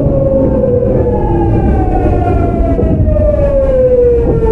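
The early Hitachi GTO-VVVF inverter of a Tokyu 9000 series train whining, heard from inside the car over the low rumble of the running gear. Its pitch falls steadily as the train slows, and near the end the tone jumps higher as the inverter changes mode.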